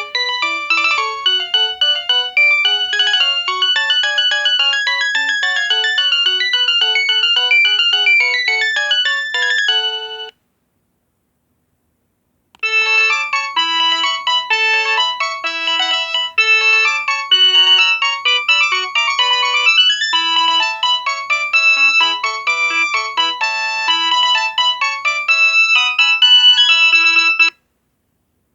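ZTE WP650 phone ringtones playing: a quick electronic melody of many notes stops about ten seconds in. After about two seconds of silence a ringtone melody starts again and stops shortly before the end.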